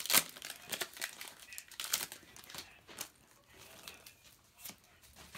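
Foil Pokémon booster pack wrapper crinkling and tearing as it is opened, a run of irregular rustles loudest about a quarter second in and again around two seconds in.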